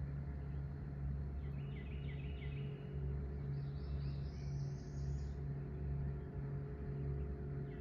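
Low, steady drone of a river towboat's diesel engines pushing coal barges, throbbing about once a second. A songbird sings a short phrase of repeated notes about a second and a half in, then a higher trill.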